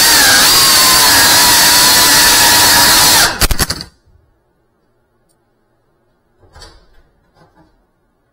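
FPV racing drone's brushless motors whining loudly at high speed, the pitch wavering up and down. A few hard knocks just after three seconds in as the drone comes down, and the motors cut out at once; only a couple of faint small knocks follow.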